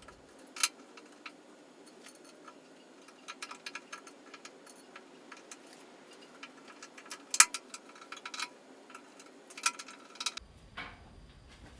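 Irregular sharp metallic clicks and ticks, some single and some in short quick clusters, from hand tools and parts being handled while fitting a new fuel sending unit. Two louder clicks stand out, one about half a second in and one about seven seconds in.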